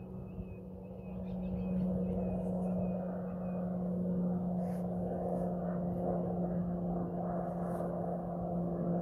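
Distant propeller aircraft flying overhead: a steady droning hum with a rushing engine noise that swells about two seconds in and holds.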